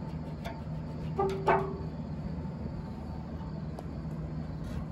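Small metal scraper blade scraping gooey, barely softened paint stripper and paint off a steel body panel: a few light scrapes and clicks over a steady low hum, with two short squeaks about a second and a half in.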